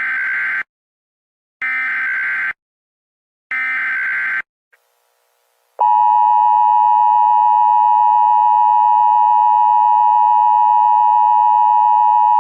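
Emergency Alert System header: three short bursts of screeching digital data tones, then, after a brief pause, the steady two-tone EAS attention signal, marking the start of an emergency alert.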